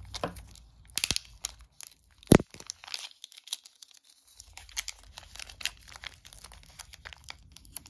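Clear plastic wrapping crinkling and tearing as a set of game dice is unwrapped by hand, in scattered crackles with one sharp snap about two seconds in and a short pause in the middle.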